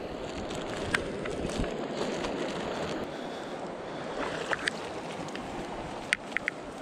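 Creek water running steadily, with a few short clicks scattered through it and three close together near the end.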